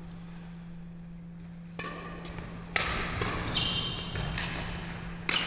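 Badminton rally in a sports hall: after a quiet couple of seconds, rackets strike the shuttlecock with sharp cracks, the loudest about halfway through and another near the end, between them players' shoes squeaking on the court floor. A steady low electrical hum runs underneath.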